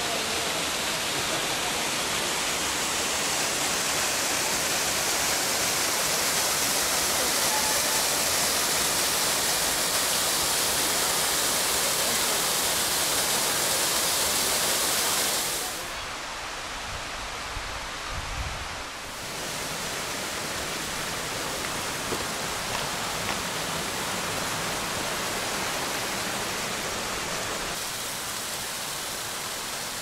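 Rushing water of a mountain beck and its waterfalls, a steady loud hiss that drops to a quieter level about halfway through.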